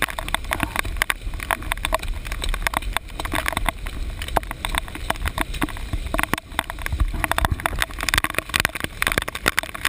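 Muffled, irregular knocks and scuffs of hurried footsteps and of a handheld GoPro rattling in its waterproof case, over a constant low rumble of wind on the case.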